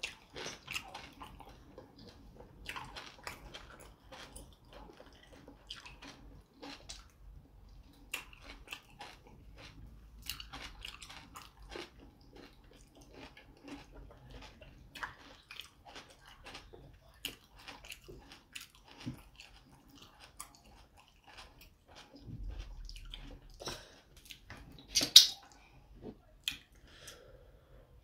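Close-up eating sounds of fufu and meat in ogbono soup eaten by hand: a string of short wet chewing smacks and mouth clicks. One louder sharp knock comes a little before the end.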